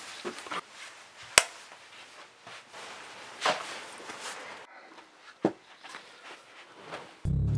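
Handling and movement sounds: clothing rustling and a few knocks, the sharpest a single click about a second and a half in, with duller thumps later on. Just before the end, loud music with bass guitar cuts in.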